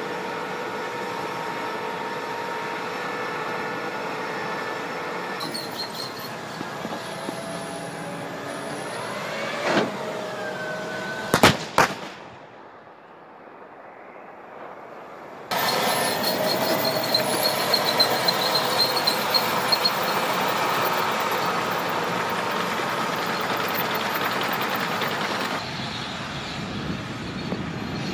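M1 Abrams tanks on the move, the gas-turbine engine running with a steady whine over the noise of the running gear, in several clips spliced together. Two sharp bangs in quick succession about midway, then a few quieter seconds before a louder stretch of tank running.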